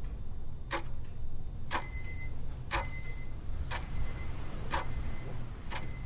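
Alarm clock ticking about once a second; from about two seconds in, each tick is followed by a short electronic beep as the alarm goes off, over a steady low hum.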